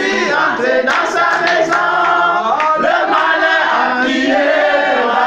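A small group of men and women singing a French gospel worship song together.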